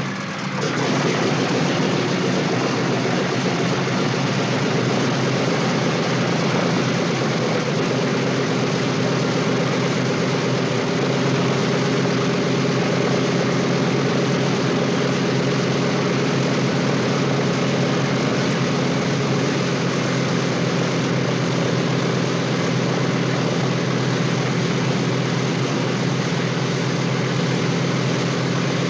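A B-17 Flying Fortress's four Wright Cyclone radial engines idling, heard from inside the aircraft: a steady, even drone with a rough hiss over it. The sound swells up within the first second, then holds steady.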